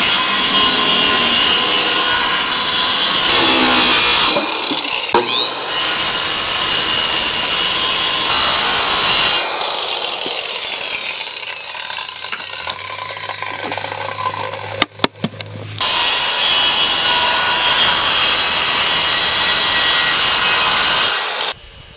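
Corded Makita circular saw cutting through film-faced plywood: three long, loud cuts. Between the second and third cut there is a quieter stretch of about six seconds with a low hum and a few knocks.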